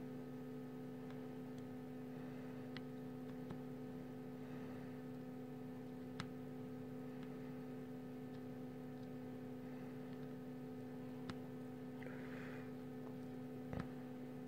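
Steady electrical hum made of several fixed tones, with a few faint sharp ticks spread through it, as an IC's pins are hand-soldered with a soldering iron.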